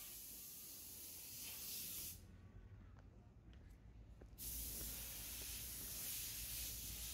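Steady windy hiss with a low rumble underneath, the high hiss falling away for about two seconds in the middle, where a few faint footstep ticks on the paved path come through.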